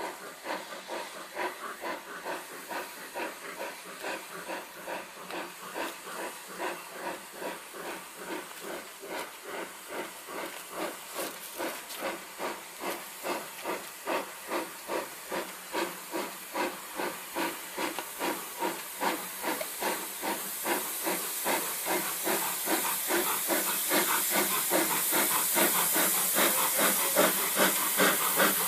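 LMS Jubilee class three-cylinder steam locomotive No. 45596 hauling a train, its exhaust beating steadily at about two to three beats a second over a steam hiss. It grows steadily louder as it approaches, the hiss strongest near the end.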